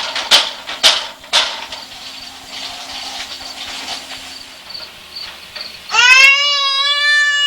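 Three or four sharp knocks or taps in the first second and a half. About six seconds in, a single high, steady squeal is held for about two seconds and then cuts off abruptly.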